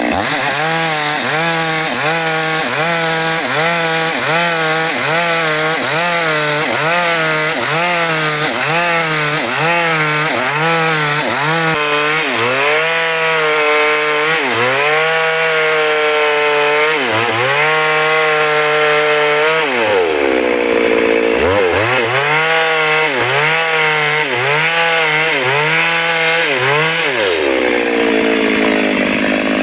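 Chainsaw engine running near full throttle while cutting wood. Its pitch dips and recovers about twice a second at first, then sags more slowly and deeply in the second half as the chain loads up in the cut.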